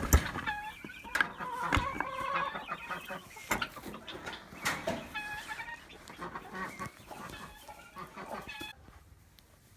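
Chickens calling in a crowded coop, many short overlapping calls with a few sharp knocks among them, dying down near the end.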